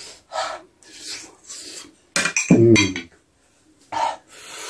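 A metal fork clinking and scraping against ceramic plates in a few short separate strokes, with a brief vocal sound from the eater about two and a half seconds in.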